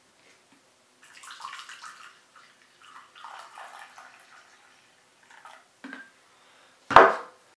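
Coffee poured from a French press into a ceramic mug, a soft splashing stream in two spells, then a couple of light clinks and one sharp knock near the end, the loudest sound.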